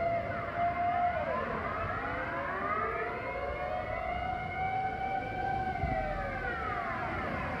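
Dutch civil-defence air raid sirens sounding their monthly test signal: a wailing tone that slowly rises and falls. More than one siren is heard at once, so their pitches cross one another.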